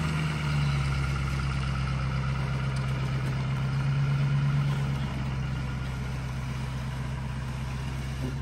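Pickup truck engine running steadily as it pulls away towing a gooseneck trailer loaded with a bulldozer, a steady low hum that gets a little quieter about five seconds in.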